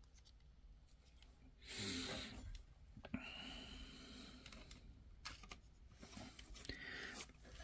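Faint handling of plastic toy figure parts: scattered small clicks and rubbing as the pieces are moved and fitted. A short breathy exhale about two seconds in.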